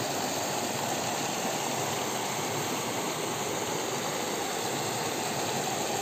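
Steady rush of water cascading over rock ledges and into pools, the stream running low.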